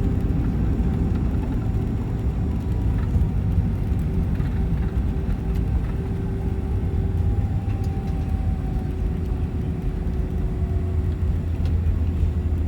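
Cabin noise of an Airbus A320 rolling on the ground after landing: a steady low rumble with a steady engine hum whose tones slowly fade out toward the end.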